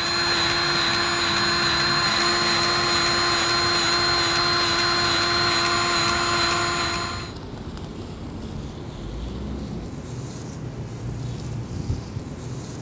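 Powered grease gun's motor whining steadily as it pumps grease onto the wheel lift's lower wear-pad tracks, stopping abruptly about seven seconds in.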